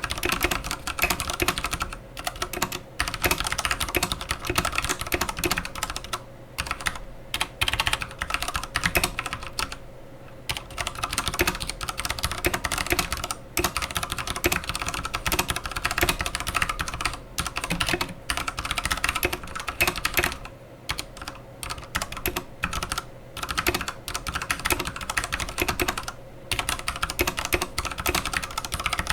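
Typing on an Akko 3087 mechanical keyboard with Akko's own switches and PBT keycaps: a rapid, continuous stream of key clacks broken by short pauses.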